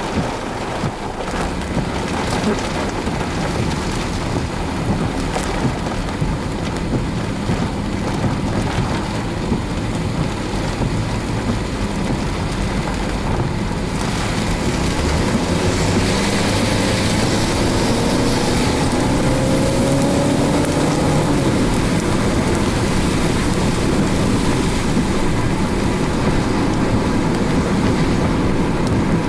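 Rain and wind with a steady low rumble. About halfway through, the noise becomes steadier and a little louder.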